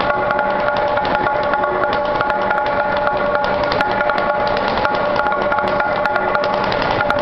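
Txalaparta, the Basque instrument of wooden planks laid on trestles, played by two players striking the planks with upright wooden sticks: an unbroken run of rapid wooden knocks, with the planks ringing at a few steady pitches.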